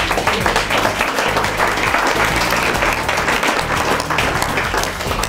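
A roomful of guests applauding, many hands clapping in a dense, steady wash, with background music underneath.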